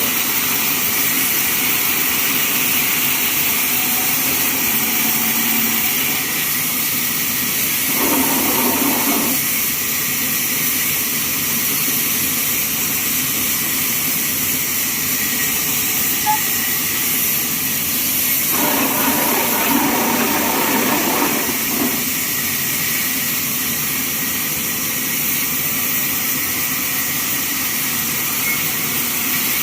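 Band sawmill running steadily with a loud, even, hissing mechanical noise. Twice there is a short burst of a lower, different sound, once about eight seconds in and again for about three seconds near the twenty-second mark.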